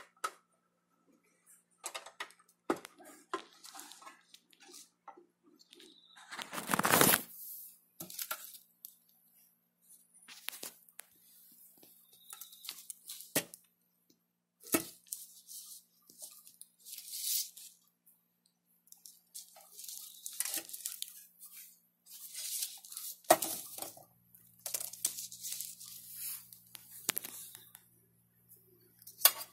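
Handling noises from a steel computer power-supply case and a screwdriver being worked, moved and set down on a sheet of paper: scattered clicks, knocks, scrapes and paper rustling. The loudest is a long scrape and thud about seven seconds in, with another sharp knock a little before the end.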